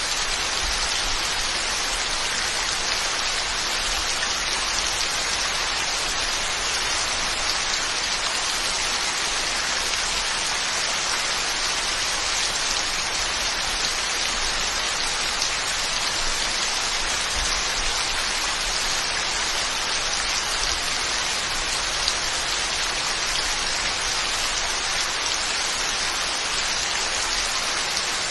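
Steady heavy rain falling on surfaces, an even hiss of countless drops with no let-up.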